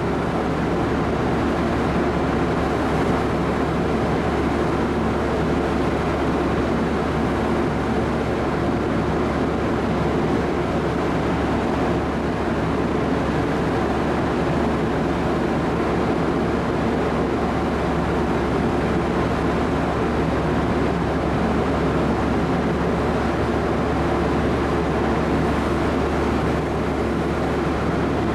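Steady drone of a large car ferry's machinery, heard on its upper deck while it berths: an even rumble with a low, constant hum.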